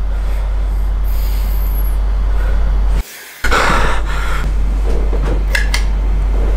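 Steady loud low hum that cuts out briefly about three seconds in. When it returns there is a short breathy rush of noise, and a few sharp clicks come near the end.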